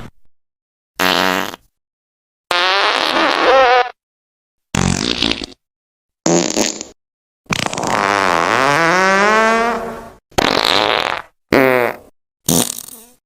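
A string of about eight fart sound effects, one after another with dead silence between them. Each is a pitched, wavering raspberry-like blast, most lasting under a second and one drawn out for about two and a half seconds in the middle.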